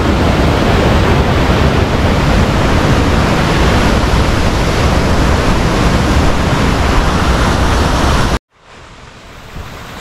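Fast-flowing stream water rushing down a stepped cascade, a loud steady roar that cuts off abruptly about eight seconds in, leaving a much quieter background.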